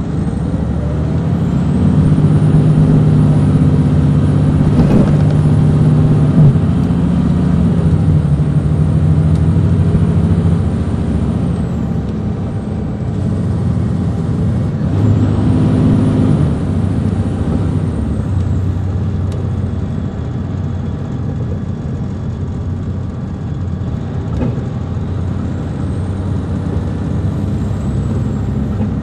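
Detroit Diesel Series 60 engine of an MCI D4000 coach heard from on board, pulling loudly for about the first ten seconds, then easing off, swelling again briefly about halfway and running steadier and quieter after that.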